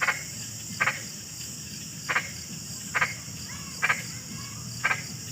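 A frog croaking over and over: six short double-pulsed croaks, about one a second, over a steady high-pitched drone of crickets.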